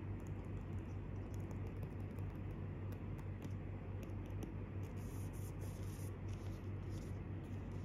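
Fingernails tapping and scratching lightly on a white cardboard Apple Pencil (2nd generation) box, a scatter of faint, irregular taps.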